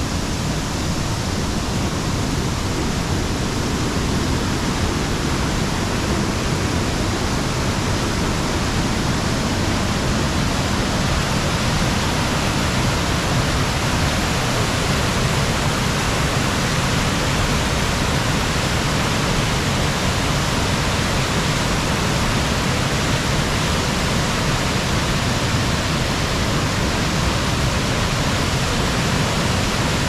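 Kawada Todoroki Falls: a waterfall rushing loudly and steadily, heard close up from the rocks beside it.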